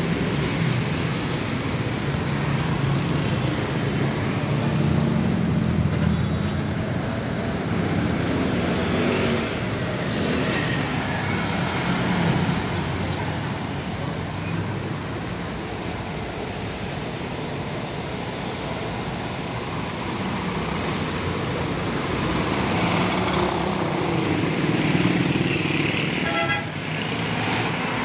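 Busy road traffic, with buses and a jeepney running and passing close by in a steady engine rumble. A vehicle horn toots briefly near the end.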